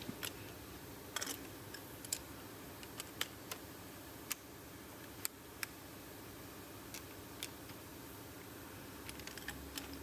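Faint, scattered sharp clicks and taps of a hand-turned spark plug socket on a long extension in the spark plug wells, as the plugs are threaded back in by hand.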